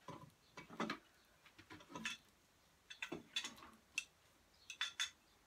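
Wooden rigid heddle loom being worked by hand: light, irregular clicks and taps, with soft rustling of the yarn as the hands work in the warp threads.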